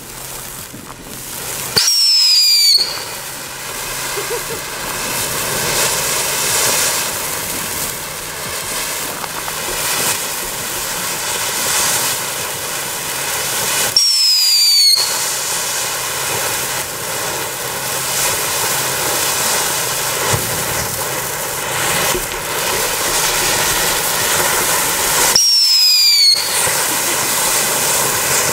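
Fountain battery of pyrotechnic fountains burning, a continuous hissing spray of sparks. Three brief falling whistles come about twelve seconds apart, a little after the start, about halfway through and near the end.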